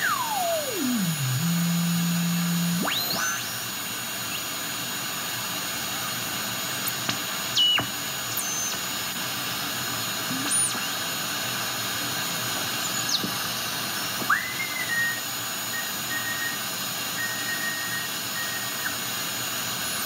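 Shortwave SSB receiver audio from an RTL-SDR tuned to a Drake TR4's 9 MHz IF: steady static hiss with a heterodyne whistle. The whistle glides down from high to low pitch in the first second and a half, holds as a low hum, then sweeps back up about three seconds in. Later come a few brief tones and a steady whistle in the last third.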